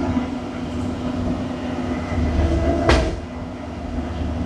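The diesel engine of an earth-moving machine runs steadily, with a low rumble and a held tone. About three seconds in there is a single sharp clunk.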